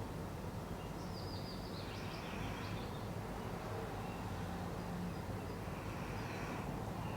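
A person asleep and snoring during a head massage, slow heavy breaths returning about every four seconds.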